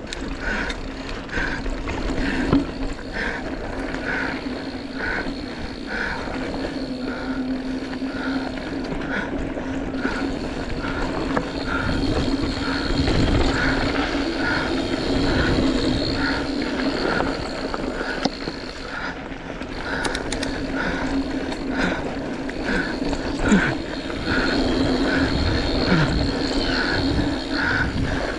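Bicycle rolling along a trail, with steady tyre and wind noise and a light chirp repeating a little faster than once a second.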